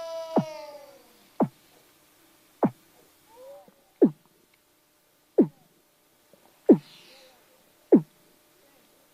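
Seal calls: a long pitched moan fades out in the first second. Then comes a series of short, sharp calls that each sweep steeply down in pitch, about one every 1.3 seconds, with a few faint warbling calls between them.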